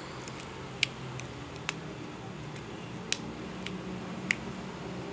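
Homemade glue slime being kneaded and squeezed by hand, giving about five sharp, unevenly spaced clicks and pops.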